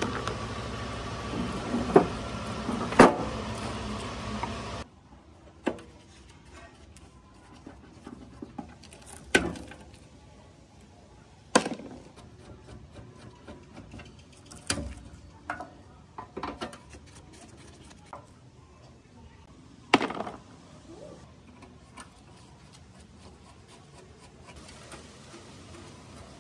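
Scattered clicks and knocks of a screwdriver and small metal parts while a rusty fog machine is taken apart: pieces set down in a plastic tray and a screwdriver working screws in the rusted steel casing. A low steady hum underneath stops about five seconds in.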